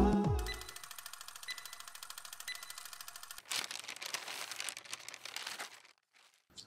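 Old-film countdown sound effect: a rapid, even projector-like clatter with a short high beep about once a second, then a couple of seconds of faint crackling hiss before it cuts to silence. The outro music fades out at the very start.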